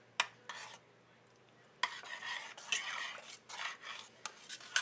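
A metal spoon stirring grated Parmesan into thick tomato meat sauce in a stainless steel pot. A sharp clink comes near the start, then repeated scraping strokes from about two seconds in.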